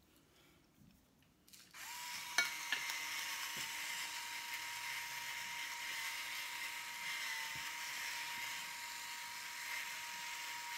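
Electric pepper grinder running steadily: a small motor's even whine over a high grinding hiss, starting abruptly about two seconds in.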